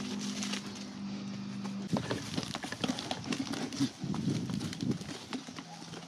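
Young goats butting heads and scuffling, with scattered sharp knocks of heads and hooves and shuffling in the dirt and straw from about two seconds in. A low steady hum sounds under the first two seconds and stops.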